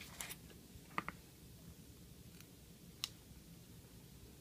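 A few faint, sharp clicks and taps: a pair about a second in and another near three seconds in, from a clear acrylic quilting ruler being set down and handled on tissue pattern paper on a table.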